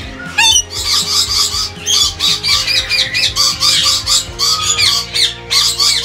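Lories in an aviary giving a dense run of shrill squawking calls, several a second, with background music underneath.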